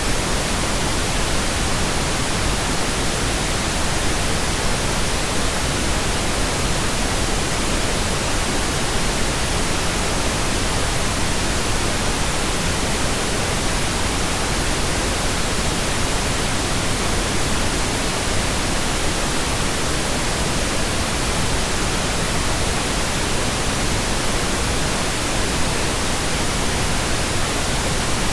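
Steady, unchanging pink noise generated in Audacity: an even hiss spread across all frequencies.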